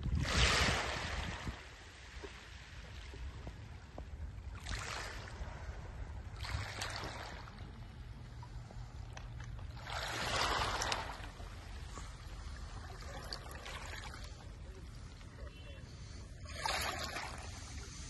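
Small sea waves washing onto a pebble beach: a hissing swash about five times, at uneven intervals, over a steady low rumble.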